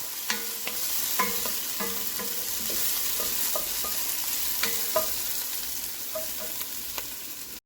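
Onions frying in a little oil in a pot, sizzling steadily, while a spoon stirs them and clinks against the pot again and again. The sound cuts off suddenly near the end.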